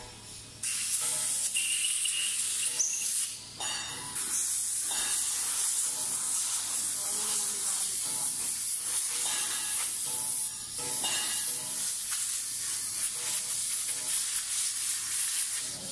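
A pressurised jet hissing steadily, almost without a break, with short pauses about three and a half and ten and a half seconds in, typical of parts being blown or sprayed clean.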